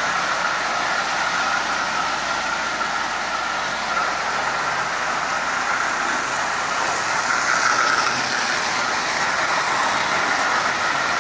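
Marx tinplate O-gauge electric train running steadily on three-rail tubular track, its motor and wheels making a continuous whir.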